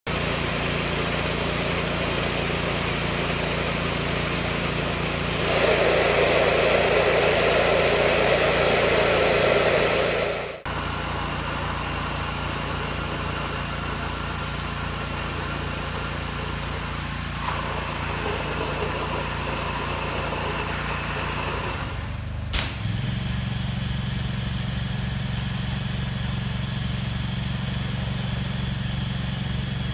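A pressure washer's engine runs steadily under the hiss of a high-pressure water jet blasting out a rain gutter. The sound breaks off abruptly twice, and after the second break the engine hum is lower and stronger.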